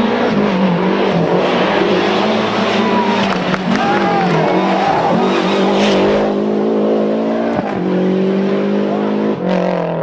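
Lancia Delta HF Integrale Group A rally car's turbocharged four-cylinder engine running hard on a tarmac stage. Its note climbs and falls with the throttle and gear changes, and briefly dips about three-quarters of the way through.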